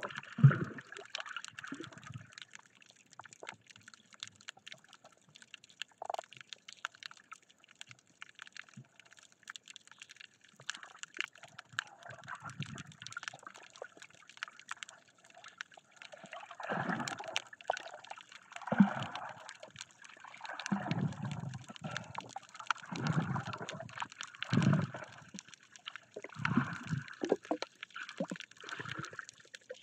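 Muffled water sloshing and gurgling around a camera held underwater while snorkeling. Scattered and fainter at first; from about halfway through, louder surges come every two seconds or so.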